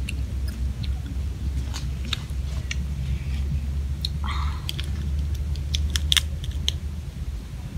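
Grilled crab shells being cracked apart by hand and chewed: a run of sharp crackles and crunches, busiest from about five to seven seconds in, over a steady low rumble.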